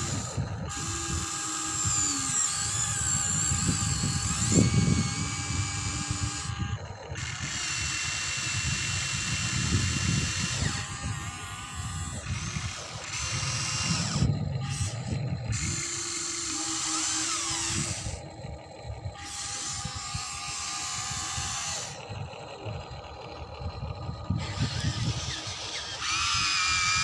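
Electric motors and gearboxes of a Huina radio-controlled toy excavator whining as the boom, arm and bucket move. The whine starts and stops in short spells, each a few seconds long, changing pitch between moves.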